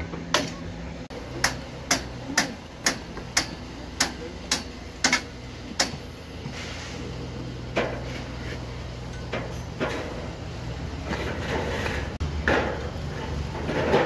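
A steel bricklaying trowel tapping clay bricks makes sharp clicks about two a second for the first six seconds. Softer scrapes of the trowel in wet mortar follow. A low steady machine hum runs underneath.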